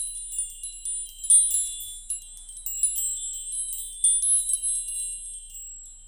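Metal wind chimes ringing: many light, irregular strikes overlapping into high, bright, lingering tones.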